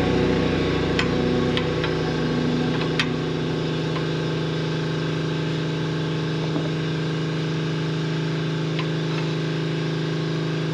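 A steady low mechanical hum, unchanging in pitch, with a few sharp clicks in the first three seconds.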